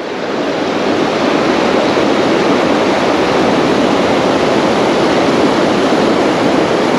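Fast-flowing creek water, swollen after heavy rain, rushing as a steady loud noise.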